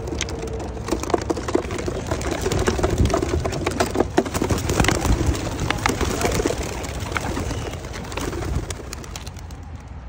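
Young racing pigeons in a wooden crate cooing, then a burst of wing clatter and crate rattling as the door is opened and the birds flap out and take off. The clatter is densest a few seconds in and dies away near the end.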